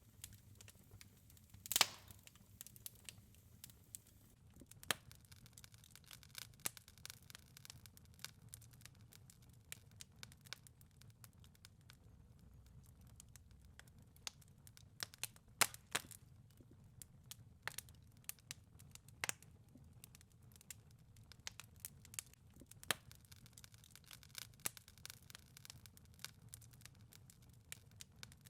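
Wood fire crackling in a fireplace: irregular sharp pops and snaps over a soft low rumble. The loudest pops come about two seconds in and again near the middle.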